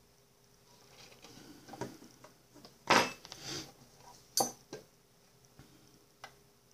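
Clear plastic containers and metal tweezers being handled on a table, knocking and clicking. A few light knocks start about a second in, the loudest sharp knock comes about three seconds in, and a few sharper clicks follow.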